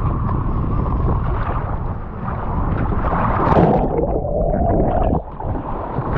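Wind rumbling on the microphone over seawater sloshing and gurgling against the side of a boat, with a brief lull about five seconds in.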